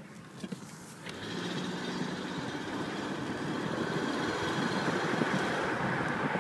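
Mercedes engine pulling under load, rising in level about a second in and holding steady with a persistent high, whining tone over the running engine. This is the load-dependent noise the owner suspects is either an exhaust leak or a bearing.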